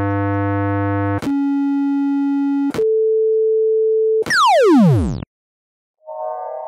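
Synthesized electronic sound effects: steady tones that jump to a new pitch every second or so, then a fast downward sweep about four seconds in that stops abruptly. After a short gap, a shimmering chime-like cluster of tones begins near the end.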